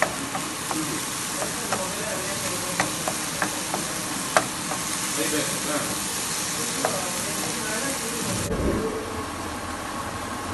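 Chopped onion-tomato masala sizzling in a frying pan while a wooden spatula stirs it, with scattered sharp taps and scrapes of the spatula on the pan. About eight and a half seconds in the sizzle stops suddenly and a low thump is heard.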